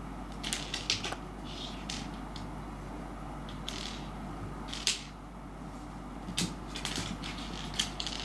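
A dried persimmon seed clicking and skittering on a wooden floor as a cat bats at it with its paws: scattered sharp taps, some in quick runs, the sharpest about a second in and about five seconds in.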